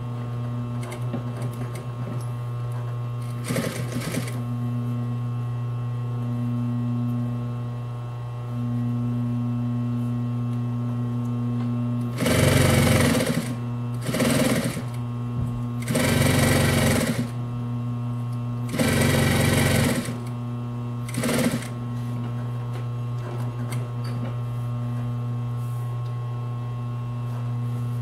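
Consew 230 industrial lockstitch sewing machine on a clutch motor: the motor hums steadily throughout, and the machine sews in short runs, one brief run a few seconds in and then five runs of about a second each in the middle stretch. These are test seams while the bottom-thread tension is being adjusted.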